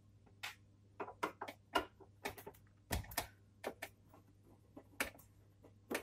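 Irregular light metallic clicks and taps of a screwdriver and screws being handled at the hard-drive mounting screws of a steel PC drive cage. There is a duller knock about three seconds in.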